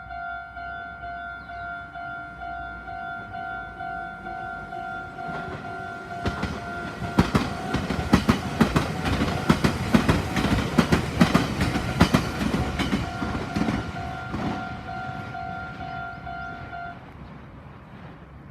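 Japanese level-crossing alarm ringing in a steady, even rhythm while a Meitetsu train passes over the crossing from about six seconds in, with rapid clicking of its wheels over the rail joints. The train fades away and the alarm stops about seventeen seconds in.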